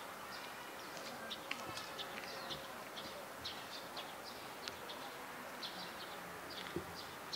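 Small birds chirping over and over, short high chirps scattered irregularly through steady outdoor background noise.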